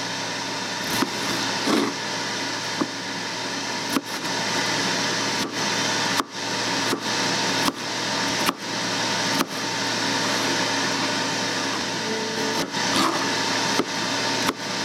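Chef's knife chopping a cucumber on a cutting board: about a dozen sharp knocks of the blade on the board, irregularly spaced, with a gap of a couple of seconds near the middle. A steady mechanical hum runs underneath.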